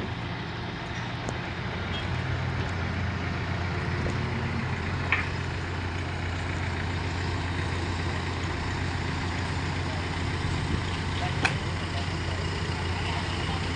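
Crane engine running steadily under load while it lowers a mini backhoe into a pit, with a low, even drone. A couple of short sharp clicks sound about five seconds in and again near eleven and a half seconds.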